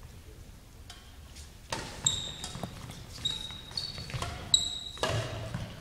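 Badminton rally on a gym floor: sneakers squeaking sharply several times and sharp smacks of racket on shuttlecock. It starts about two seconds in after a quiet start.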